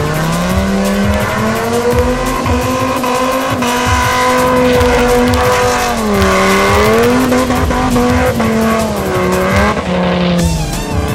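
Dodge Viper drift car's V10 engine held at high revs with tyres squealing through a long drift. The engine note dips and climbs again about six seconds in and once more near the end as the throttle is worked.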